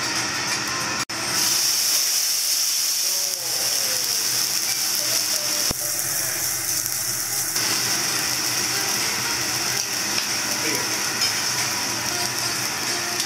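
Steak sizzling on a teppanyaki iron griddle, a steady hiss, with metal spatulas and a knife clicking and scraping against the hot plate.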